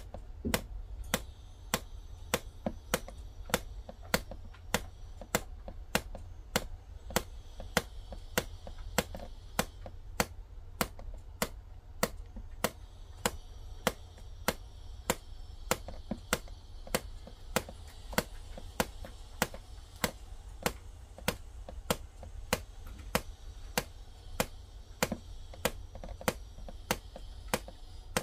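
Sharp, evenly spaced clicks, about one and a half a second, over a steady low rumble.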